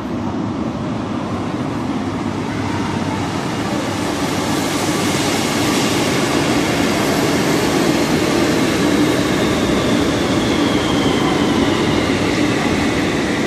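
Algiers Metro train running in the station, a steady rumble that echoes through the vaulted hall, with a faint whine that falls in pitch through the second half.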